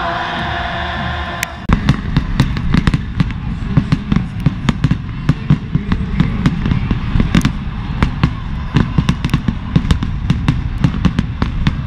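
Stadium crowd chanting, then from about two seconds in a dense, irregular crackle of sharp ticks over a heavy low rumble: sleet pellets striking close to the microphone.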